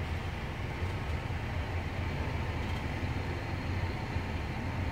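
Steady low rumble of diesel engines running, heard from inside a truck cab.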